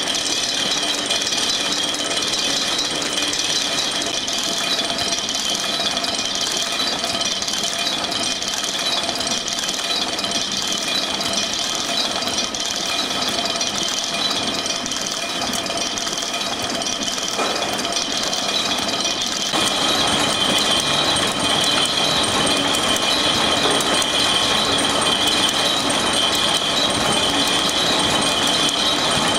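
A cardboard-envelope folding and gluing machine (folder-gluer) running. Its belts and rollers make a steady, rapid mechanical rattle with a high, steady whine. The sound grows a little louder about two-thirds of the way through.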